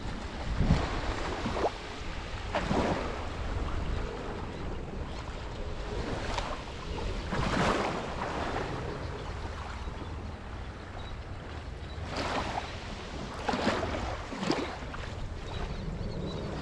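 Sea surf: small waves breaking and washing up the beach every few seconds, with wind rumbling on the microphone.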